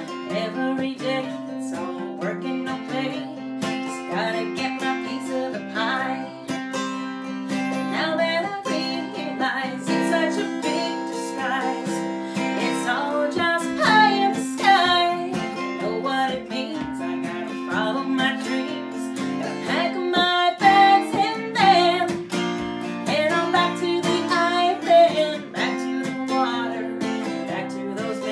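A woman singing while strumming a steel-string acoustic guitar: a solo folk song, with the strummed chords running under her voice throughout.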